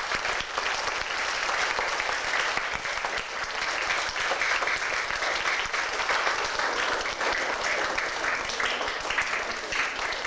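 An audience of schoolchildren applauding steadily, welcoming a musician onto the stage.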